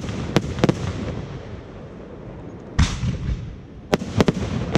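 Fireworks display: aerial shells bursting. Two sharp bangs come in the first second, a longer, heavier boom about three seconds in, then three quick bangs near the end, with a low rumbling echo in between.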